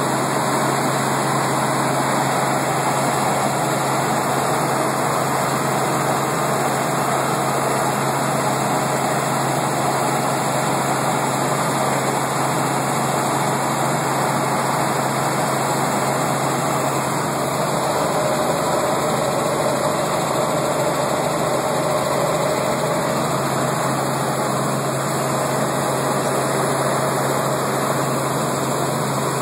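Helicopter engine and rotor noise, heard from inside the cabin: a loud, steady drone with a low hum underneath that does not change.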